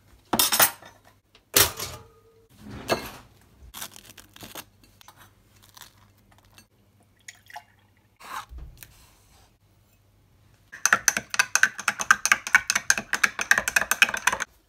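Crockery knocking and clattering on a kitchen countertop, then a short pour of milk into a drinking glass. For the last four seconds or so, a metal spoon clinks rapidly and loudly against the glass while stirring chocolate milk powder into the milk.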